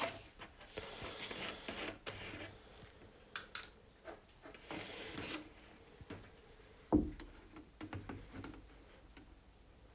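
Aerosol can of brake and clutch cleaner sprayed in two short hissing bursts, with a single sharp knock about seven seconds in.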